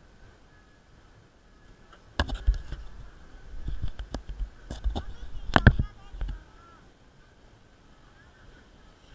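A cluster of loud knocks, bumps and thuds lasting about four seconds, loudest near the end of the cluster: handling noise of an action camera in a waterproof case as it is moved and repositioned.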